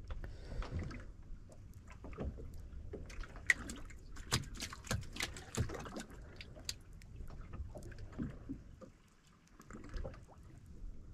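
Water lapping and sloshing against the hull of a small fishing boat, with scattered light clicks and knocks at irregular moments.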